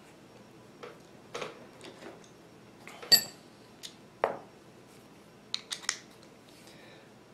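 Small metal tools and gun parts being handled and set down on a tabletop: scattered light clicks and clinks. The loudest is a short ringing metal clink about three seconds in, and a quick cluster of clicks comes near the end.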